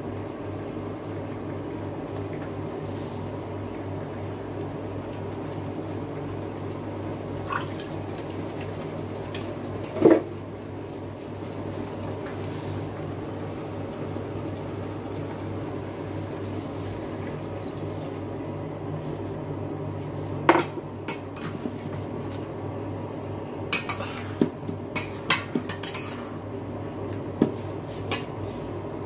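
Kitchenware sounds over a steady fan hum: a bottle, a glass measuring jug and a spatula knocking and clinking as light soy sauce is poured and the chicken is worked in a stainless steel pan. There is one sharp knock about ten seconds in, another about twenty seconds in, then a run of light clicks and taps near the end.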